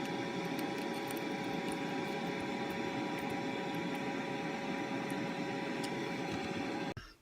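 Steady mechanical hum with a few constant tones over an even whir, typical of a small fan or motor running; it cuts off abruptly about seven seconds in.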